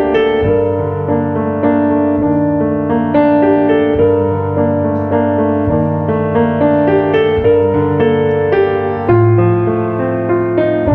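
Background music played on piano: sustained chords over low bass notes that change roughly every two seconds.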